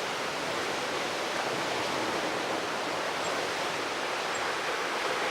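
A steady outdoor rushing noise with no breaks or swells, with a few faint high pips about once a second in the second half.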